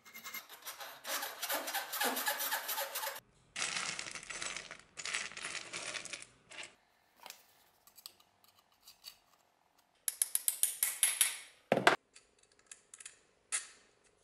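Flat hand file rasping in repeated strokes across a threaded steel bolt clamped in a vise for about the first six seconds. Then small metal clicks and taps of screws and parts being handled, with a quick run of clicks and a single thump a little before the end.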